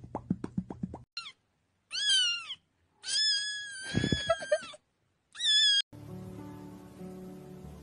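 Rapid popping clicks, about eight a second, stop about a second in. Then a kitten meows four times, the third call long and held. From about six seconds background music with held notes plays.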